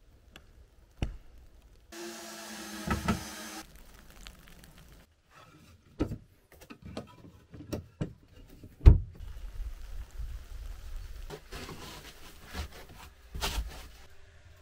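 Wooden knocks and thumps as small plank cabinet doors under a log-cabin bunk are pushed and shut, with one hard thump about nine seconds in. A short squeaky creak comes about two seconds in.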